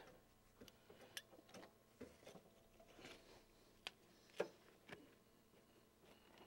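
Near silence broken by a few faint clicks and taps from hands working at the base of a cubicle wall panel, with one sharper knock about four and a half seconds in.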